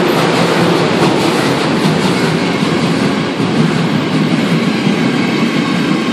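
A steam-hauled train passing close by at a station platform: the tender of DR class 50 locomotive 50 3648-8, then its passenger coaches, wheels running on the rails loud and steady.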